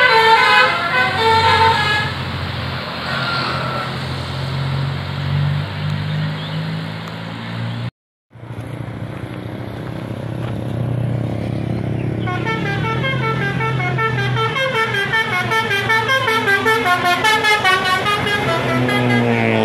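Tour buses' basuri multi-trumpet air horns playing telolet melodies, with a bus engine running underneath. One tune of stepped notes ends about two seconds in; after a short break, another horn starts up around twelve seconds in and plays quick alternating notes.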